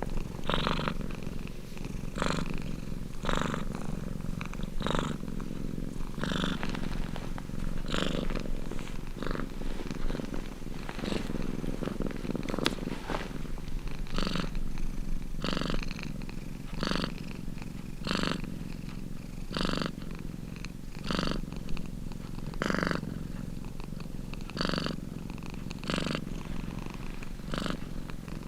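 Domestic cat purring close to the microphone, a steady low rumble that swells in a regular rhythm a little under a second apart with each breath in and out.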